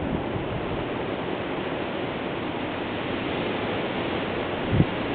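Wind blowing steadily through tall trees as a continuous rushing noise, with a short knock near the end.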